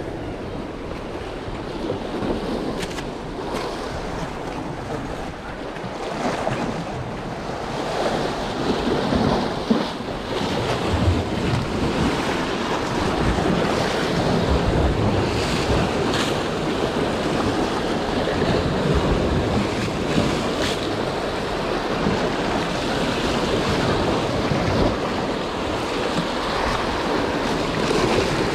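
Sea surf breaking and washing over rocks just below, with wind buffeting the microphone; the wash grows louder about eight seconds in.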